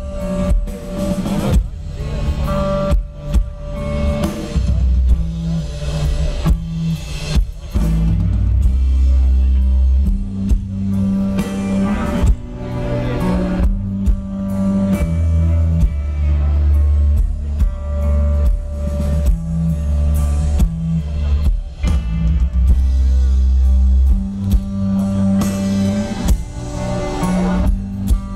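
Post-metal band playing live: heavy, loud guitars and bass over a drum kit, a dense wall of sound with a deep low end and steady drum hits.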